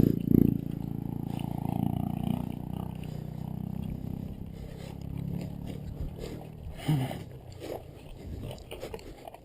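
A motor engine running steadily and fading away over the first few seconds, followed by a few short, separate sounds near the end.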